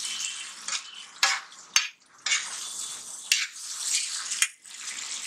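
Onion-tomato masala sizzling on an iron tawa as a steel spatula stirs and turns it, with a few sharp clicks of the spatula against the pan.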